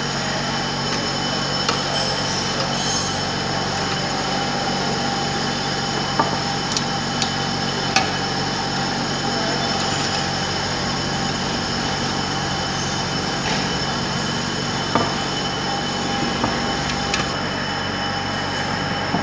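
Steady workshop machine hum with several steady tones. A few sharp metallic clicks come from a steel T-handle socket wrench being set on and turned on the oil pump cover bolts.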